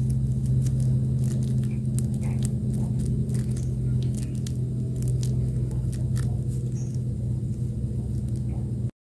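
A steady low hum with faint scattered clicks, cutting off abruptly into silence near the end.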